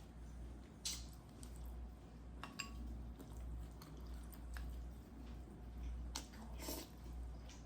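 A person chewing and biting food close to the microphone: wet mouth sounds with a few short crunchy bites and clicks, over a steady low hum.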